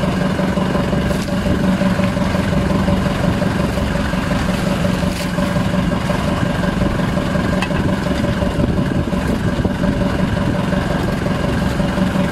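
Outrigger boat's engine idling, a loud, even hum that holds one pitch throughout.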